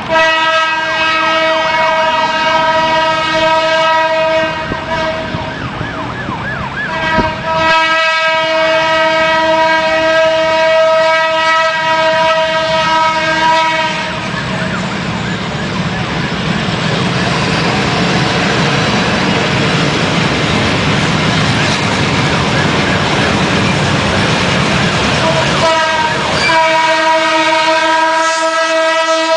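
Horn of a GE U11B diesel locomotive blowing three long blasts, a chord of several notes: the first two come back to back with a short break about six seconds in, and the third starts near the end. Between the second and third blasts the approaching train's diesel engine and wheels on the rails make a low rumble.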